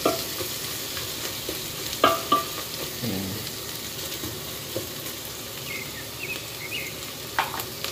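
Sliced onions and ginger sizzling in hot oil in a metal pot while a wooden spatula stirs them, with a few sharp knocks and scrapes of the spatula against the pot.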